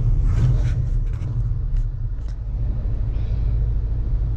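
Engine and exhaust of a 1977 Ford pickup running in a steady low drone, heard from inside the cab while driving on the road.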